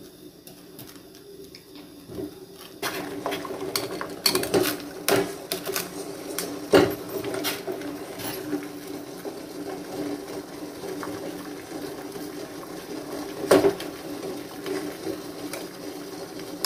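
Water boiling hard in a steel pot with a steel bowl of grated chocolate sitting in it, the bowl rattling steadily against the pot; the rattle sets in about three seconds in. Sharp metal clinks come through it now and then.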